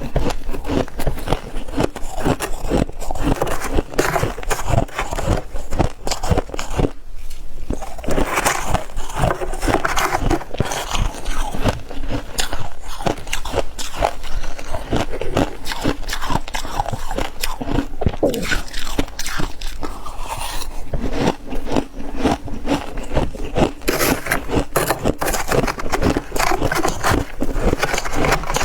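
Soft, dry freezer frost crunching close to the microphone as it is bitten and chewed: dense, rapid crackling crunches, with a short pause about seven seconds in.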